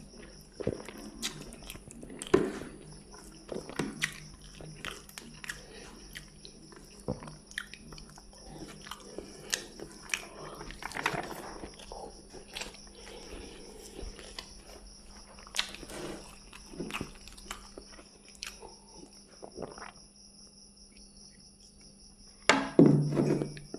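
A person chewing a mouthful of rice and fried fish, eaten by hand, with soft irregular mouth clicks and smacks. Near the end a brief, louder voice-like sound breaks in.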